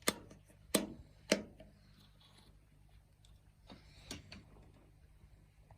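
Three sharp knocks or clicks about half a second apart, then a few fainter ones about four seconds in.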